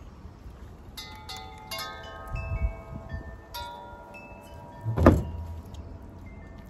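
Wind chimes ringing: a run of metal tones at several pitches struck in quick succession from about a second in, each ringing on for seconds. A brief loud thump about five seconds in.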